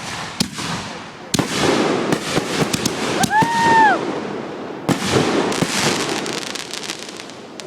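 Consumer fireworks going off: a couple of sharp pops, then two loud bangs, about a second and a half in and about five seconds in, each followed by dense crackling.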